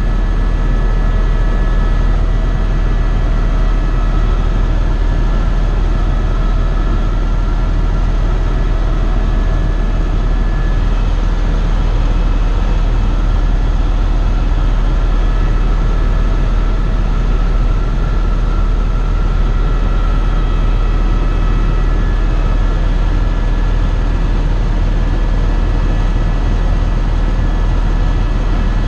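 Eurocopter EC130 EcoStar helicopter heard from inside its cabin: steady, loud rotor and turbine noise, with a deep drone underneath and a few steady high whining tones on top.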